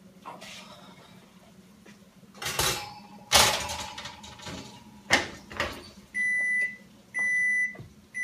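A metal baking sheet clatters and knocks as it is taken out of the oven and set down on the counter. About six seconds in, an electronic kitchen appliance starts beeping: one long, steady, high beep about every second.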